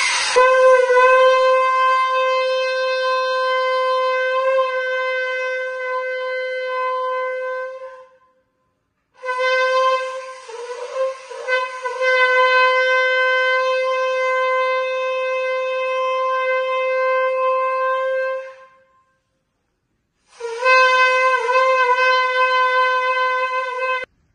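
Conch shell (shankh) blown in three long blasts, each held on one steady note with short silences between, the last one shorter; blown as part of a Hindu puja at a home shrine.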